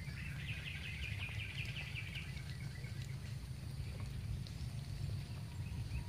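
A wild animal's rapid high trill of quickly repeated notes lasting about two seconds, in the first half, over a steady low rumble.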